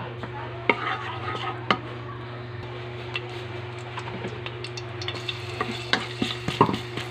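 A wooden spatula scrapes and taps on a metal wok with hot oil, over a steady low hum. About five seconds in, minced garlic goes into the oil and starts to sizzle.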